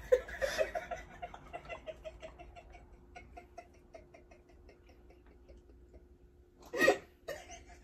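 Mouth smacking while chewing food: a run of wet smacks about four a second, fading out over the first few seconds. A short, louder burst comes near the end.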